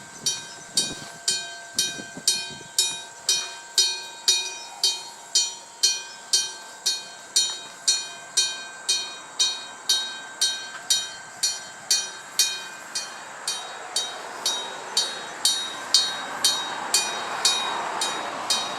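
The alarm bell of a gong-type railway level crossing, a Nippon Signal EG1003A AC electric gong, struck about twice a second, each stroke ringing on with a clear metallic tone. In the last few seconds a rushing noise builds under the strokes as a train draws near.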